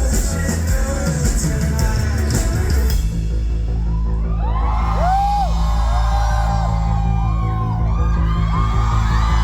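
Live rock band playing loudly in a hall. About three seconds in the drums and cymbals stop, leaving a steady low bass under high tones that swoop up and down.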